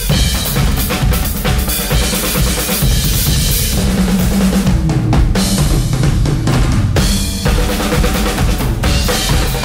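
Two drum kits played together at speed: dense, rapid strokes on snare, toms and bass drum with cymbals, as a live drum-battle routine.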